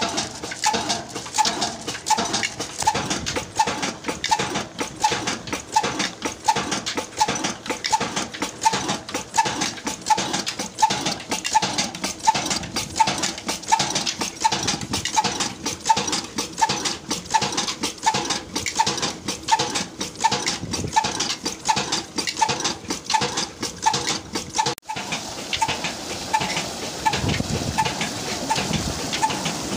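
35 hp Sadaqat horizontal diesel engine of Ruston Hornsby pattern running at a steady slow speed, with an even exhaust beat about twice a second. Near the end the beat continues with the rush of pumped water gushing from pipes into a tank.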